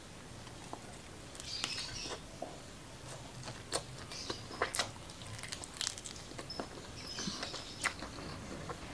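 Close-miked eating sounds of rice and fried shrimp being chewed: soft chewing with scattered sharp smacks and clicks of the mouth.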